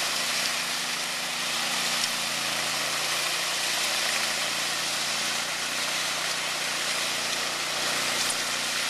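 Ride-on power trowel running steadily as it works a fresh concrete slab: an even engine drone under a steady hiss.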